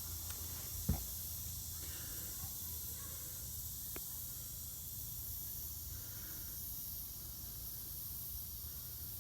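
Steady background hiss with a faint low hum. A single soft knock comes about a second in and a faint click near four seconds, from the rifle scope being handled.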